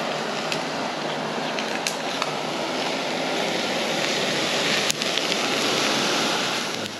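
Peppers, onions and meat sizzling in two small frying pans on canister backpacking stoves, a steady hiss of frying mixed with the burners, with a few light clicks of a spatula and tongs against the pans.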